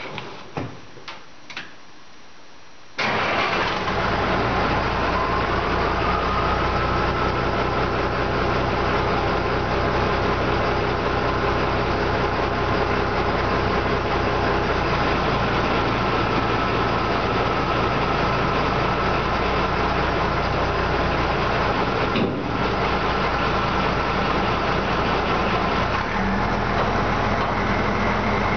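Dump truck engine running steadily from about three seconds in, after a few light clicks. Near the end the engine note changes and a steady whine comes in as the PTO-driven hydraulic pump starts raising the dump bed.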